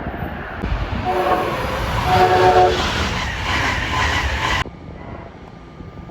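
Passenger train horn sounding two short blasts, the second a little longer, over the loud noise of the train passing close by. The train noise cuts off suddenly about four and a half seconds in, leaving a quieter rumble.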